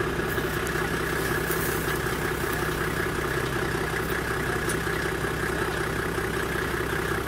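A vehicle engine running steadily at a constant, idle-like speed, with an even hum that does not change.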